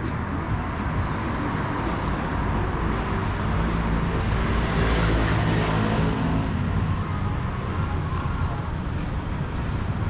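Road traffic: engine rumble and tyre noise, swelling as a vehicle passes close about halfway through, then easing back.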